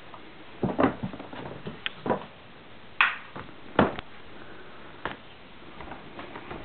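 About half a dozen irregular soft knocks and clicks: footsteps and handling noise from a handheld camera carried through a small room.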